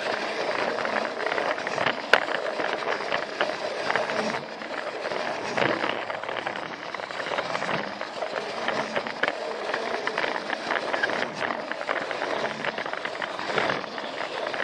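Plarail toy train running on plastic track: a steady electric-motor whir with rattling and frequent small clicks from the wheels and track joints, and one sharper click about two seconds in.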